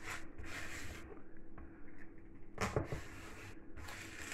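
A knife slicing lengthwise through a raw leek on a wooden chopping board, the crisp leaf layers rustling and rubbing in three short stretches.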